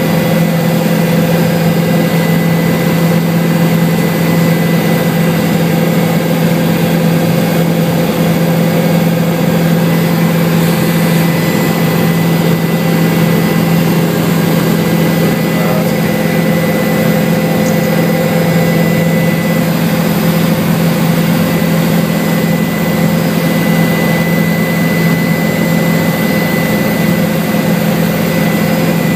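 Helicopter in flight: a steady, loud drone of rotor and engine, with a thin high whine held constant above it.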